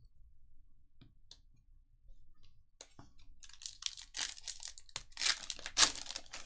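The foil wrapper of a Panini Prizm basketball retail pack being torn open and crinkled by hand: a few light clicks, then from about three seconds in a dense crackling tear that is loudest near the end.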